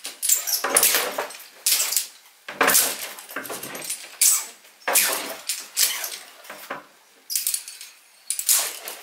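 A toothed rope clamp on 8 mm dynamic rope being loaded by sharp jerks on a sling: short rasping slides of rope through the clamp with clinks of carabiners and hardware, about eight or nine jerks at uneven spacing.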